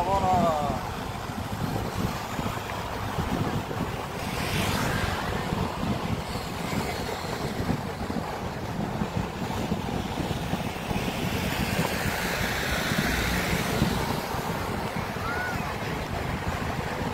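Wind buffeting the microphone and road noise from a moving vehicle amid street traffic, a steady rushing haze. A wavering pitched sound fades out in the first second, and passing traffic swells the noise a couple of times.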